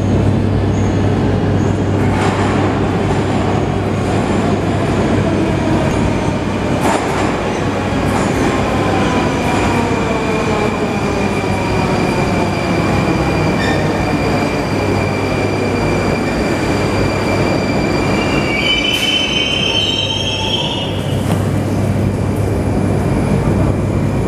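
Rusich 81-740/741 metro train arriving at the platform: steady rolling noise and an electric traction whine that falls in pitch as the train slows. A wavering high squeal follows as it comes to a stop, about three quarters of the way through.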